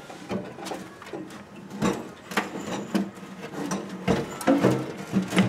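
Scattered clicks and knocks from a Chevy Malibu wagon's fuel tank being let down on a floor jack, with a heavier knock about four seconds in.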